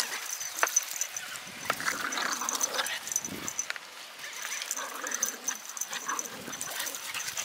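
Japanese Terriers play-fighting, with dog growling in irregular spells and short scuffling clicks.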